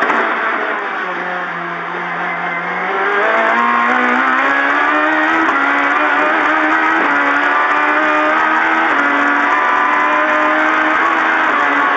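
Toyota Starlet rally car's 1800cc engine under hard driving. The revs drop to a lower note about a second in, then climb again from about three seconds in and stay high, with brief dips at the gear changes.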